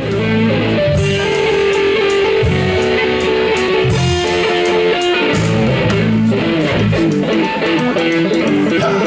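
Background music led by guitar, over a bass line.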